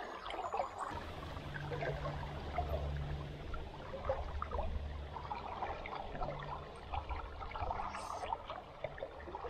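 Shallow river water trickling and gurgling steadily, with a faint low hum that comes and goes.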